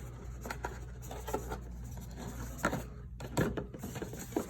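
Folding card box and tray being handled as tabs are worked into slots: scattered soft taps, clicks and rubbing of card on card, over a steady low hum.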